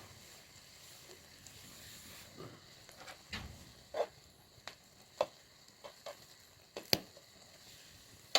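Faint sizzling of food cooking in a frying pan over a wood fire, with a scattering of sharp clicks and knocks through the second half.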